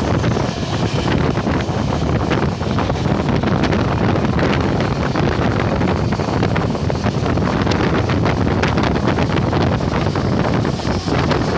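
Wind buffeting the microphone over the steady rumble and rapid clatter of a goods train's covered wagons passing close by on the next track at high speed, heard from the open door of a moving train.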